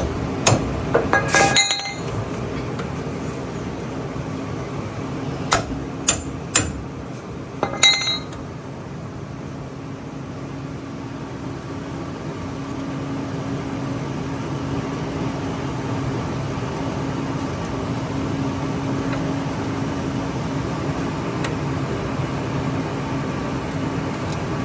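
Metal tools or parts clinking and knocking with a ringing tone, about eight sharp strikes in the first several seconds, then a steady low hum.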